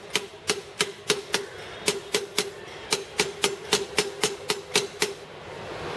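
Hammer tapping a 6204 ball bearing home into a motorcycle's front wheel hub: a run of quick, even knocks, about three or four a second, that stops about five seconds in as the bearing seats fully.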